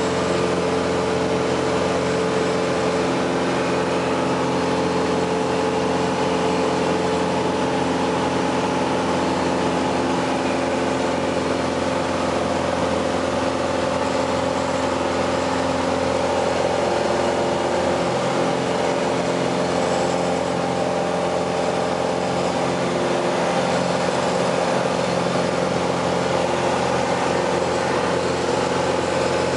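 Single-engine light plane's piston engine and propeller running at a steady drone, heard from inside the cabin in flight.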